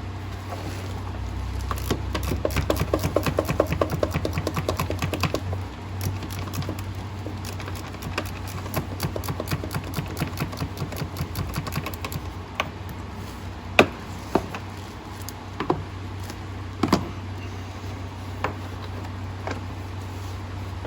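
Hand ratchet wrench clicking rapidly in long runs while bolts are worked on the diesel engine's top end, then several separate sharp metal clinks of tools and parts. A steady low hum runs underneath.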